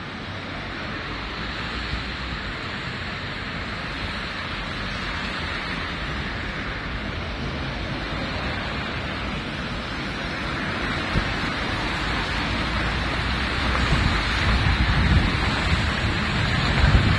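Rainy street ambience: a steady hiss of rain and car tyres on wet roads. It grows louder over the last few seconds as a van passes close by, with wind rumbling on the microphone near the end.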